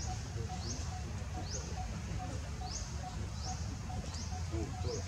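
An animal giving a string of short, high-pitched chirps, each rising in pitch, repeating several times over a low rumble.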